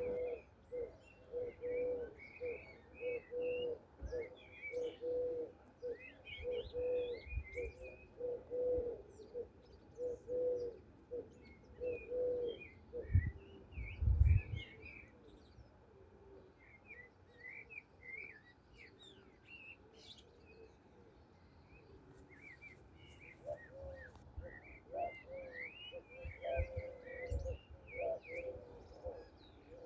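A dove cooing in a steady run of low repeated notes for the first twelve seconds or so and again near the end, while songbirds chirp and twitter higher up throughout. A brief low rumble about halfway through is the loudest moment.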